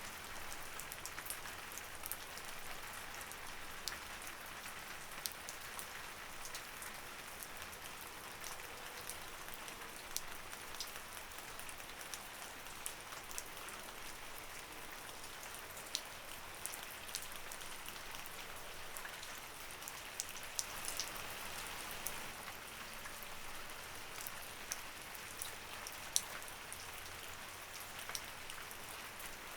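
Light rain falling steadily: a soft even hiss with many separate drops ticking on a surface.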